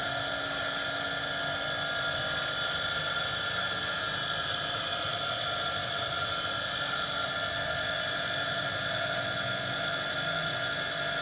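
A steady mechanical drone: an even hiss with several constant tones, unchanging in level and pitch.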